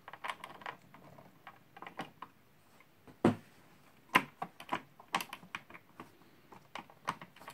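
Irregular clicks and taps of fingers handling a CPU water block and its mounting hardware on a motherboard, with a sharper knock about three seconds in.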